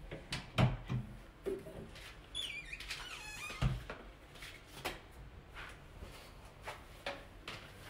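Wooden shoe cabinet door being swung shut: a squeak lasting about a second that dips and rises in pitch, then a dull thump as the door closes, with a few light knocks before and after.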